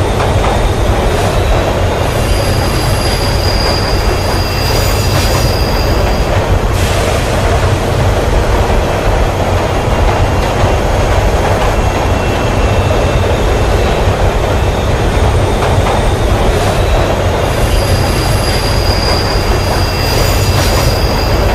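Subway train running through a tunnel: a steady heavy rumble of wheels on rail, with a thin high wheel squeal rising over it about three seconds in and again near the end.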